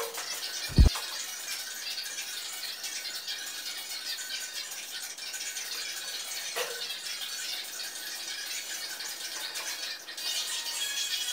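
Steady rattling and rustling of painting supplies being handled, with one dull thump about a second in.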